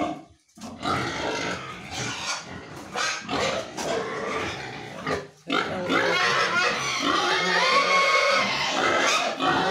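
A pen of domestic pigs squealing and grunting, a near-continuous clamour with brief pauses that gets louder about six seconds in. The pigs are calling for their feed.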